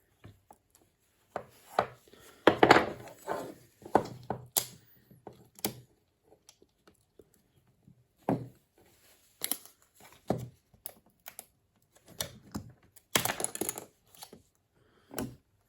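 Glue being cut and snapped off a small fan's frame: a scatter of irregular sharp cracks, snaps and short crunching scrapes, the loudest about two and a half seconds in and again about thirteen seconds in.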